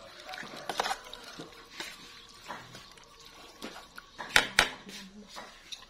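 Metal spoon stirring cooked pork laab in a metal pot, scraping and clinking against the pot, with two sharp clinks about four and a half seconds in.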